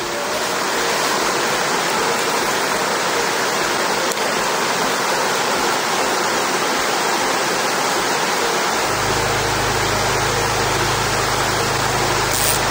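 Steady rush of a river running over rapids. A low steady rumble joins about nine seconds in.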